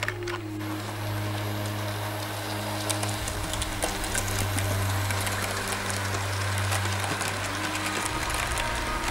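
Model railway train running past on the layout: the steady hum of its small electric motor, with quick clicking of wheels over rail joints from about three seconds in.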